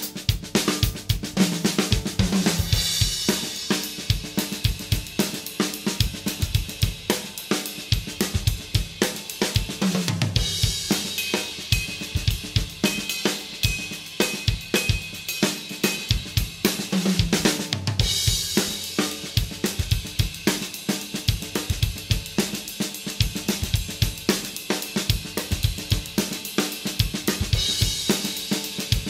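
Acoustic drum kit played with sticks in a steady 7/8 groove at 110 BPM: bass drum, snare and hi-hat with no other instruments. Brighter cymbal crashes ring out four times, marking the start of new phrases.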